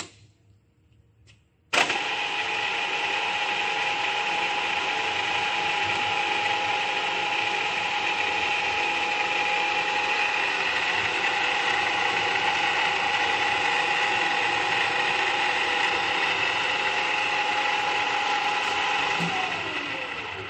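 Giddings & Lewis 2R3 radial drill starting abruptly about two seconds in and running with a steady gear whine. Near the end it is switched off and the whine falls in pitch as it winds down.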